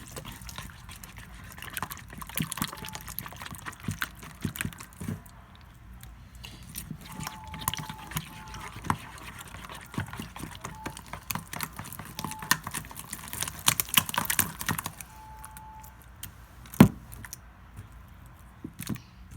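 Hands squishing and kneading freshly borax-activated white-glue slime: wet, sticky squelches with clicky pops, and one sharp click near the end.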